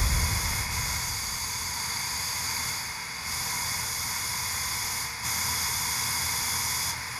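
Failing electrolytic capacitor venting vapour through the vent in its top: a steady hiss, loudest at the start and easing over the first second, with a few brief dips in strength.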